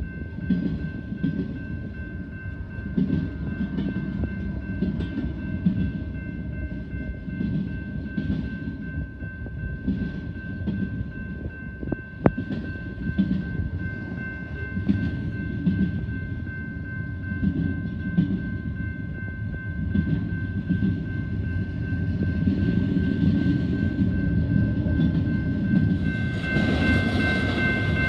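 A train rolling past, its wheels clattering in repeated bursts over the rail joints under a continuous low rumble, with a steady high-pitched tone running through it. It grows louder near the end.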